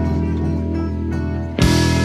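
Background music with held chords and a sudden loud hit about one and a half seconds in.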